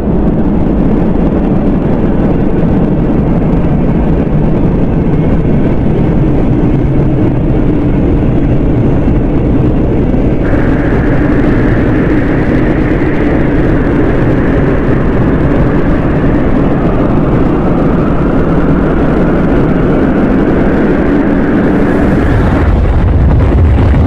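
Custom-made Godzilla atomic breath sound effect: a loud, sustained rushing blast with a steady low hum under it. A higher hissing layer joins about ten seconds in.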